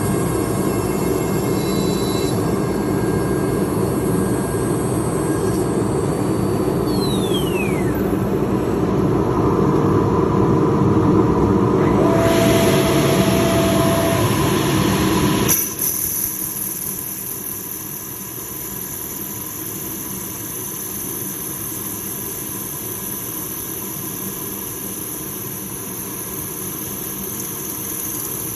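Woodworking machinery running, a loud steady grinding noise with a brief falling whine, then dropping suddenly about halfway through to a quieter steady hum.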